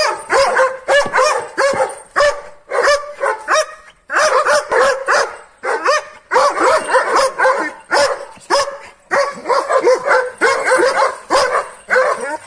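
Anatolian shepherd (Kangal-type) dogs barking furiously in fast, almost unbroken volleys of several barks a second. This is the agitated, aggressive barking of guard dogs worked into a rage on their chains.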